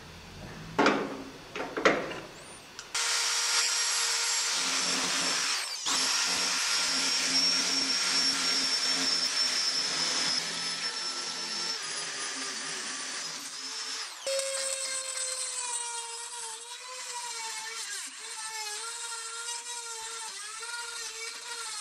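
A couple of short clunks as the ball peen hammer head is set in the vise. From about three seconds in, a power drill runs steadily, boring out the old handle in the hammer head's eye. Near the middle it gives way to a small rotary tool whining at a wavering pitch as it grinds inside the eye.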